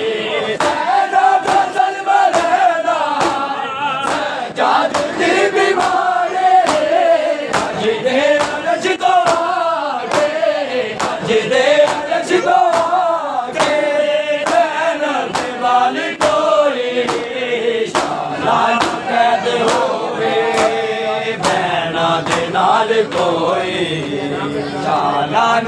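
A crowd of men chanting a Punjabi noha in unison, with a steady beat of open hands slapped on chests (matam), about one slap a second.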